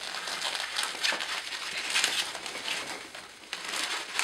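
Inflated latex twisting balloons squeaking and rubbing against one another as hands grip and press them into place, in irregular squeaky bursts.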